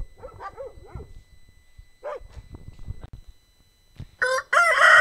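A dog yapping: a quick run of short, high barks in the first second and one more about two seconds in. Near the end a rooster starts to crow, loud and drawn-out.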